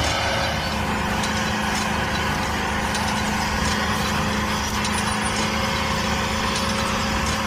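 Tractor engine running steadily while pulling a cultivator, an even drone with no change in pace.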